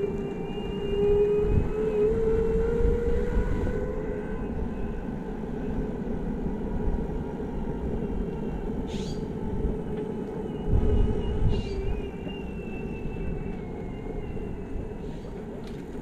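Backfire Zealot electric skateboard riding on pavement: the motors whine over a steady wheel rumble, the whine rising in pitch over the first few seconds as the board speeds up. Wind buffets the helmet microphone twice, once a couple of seconds in and again past the middle.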